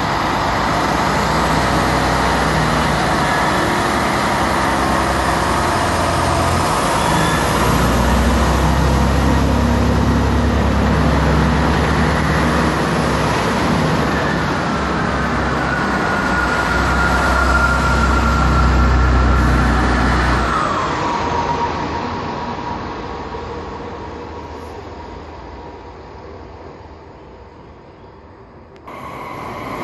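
A Chiltern Railways diesel multiple unit passes close by. Its underfloor diesel engines give a heavy low rumble under the wheel and rail noise. About twenty seconds in, a whine drops in pitch as the train goes by, and the sound then fades away, cutting abruptly to louder train noise near the end.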